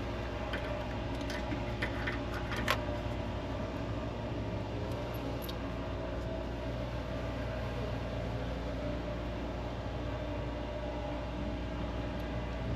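A handful of short, light clicks and clinks in the first three seconds, over a steady low mechanical hum.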